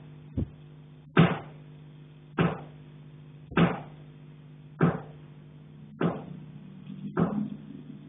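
Repeated knocking on a pipe in an attic, heard through the building: sharp strikes about every 1.2 seconds, each ringing briefly before fading, over a steady low hum.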